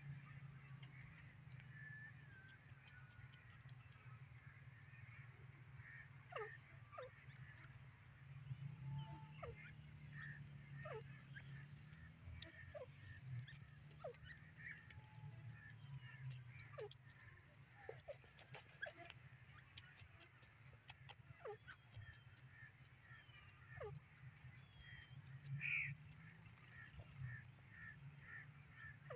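Grey francolin giving faint, short downward-sliding calls, scattered irregularly, over a steady low hum. A sharper high note stands out about 26 seconds in.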